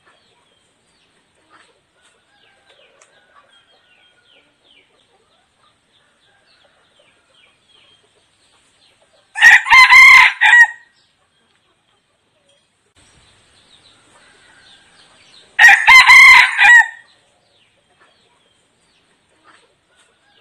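Red junglefowl decoy rooster crowing twice, each a short crow of about a second and a half, some six seconds apart. Faint high chirping between the crows.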